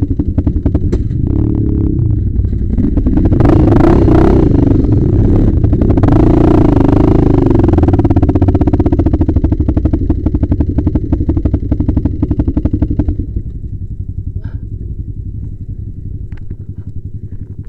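Yamaha Raptor 660 ATV's single-cylinder four-stroke engine running under throttle with a couple of revs, then dropping to a quieter idle about thirteen seconds in.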